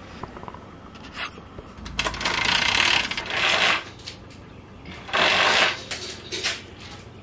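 Bedding rustling in two loud rushes as a person shifts under a blanket and reaches out of bed, with a few small clicks and knocks in between.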